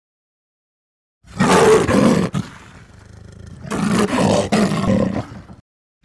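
A roaring sound effect, heard twice: a short roar about a second in, then a longer one that stops suddenly near the end.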